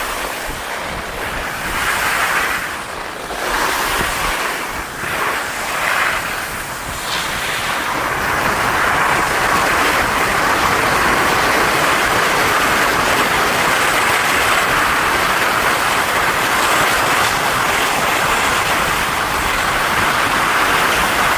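Skis sliding and scraping over packed snow, with wind rushing over the microphone. For the first several seconds the hiss swells and fades with each turn, then it runs steady and louder.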